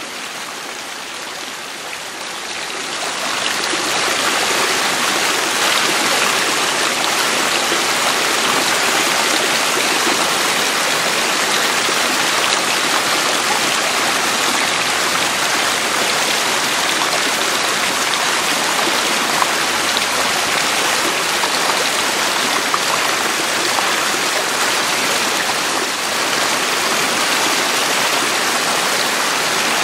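Water of a mountain stream running, a steady rush of water that grows louder over the first few seconds and then holds level.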